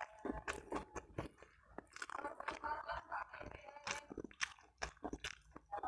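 A person chewing a mouthful of rice, fish and omelette eaten by hand, close to a clip-on microphone, with many irregular wet clicks and lip smacks.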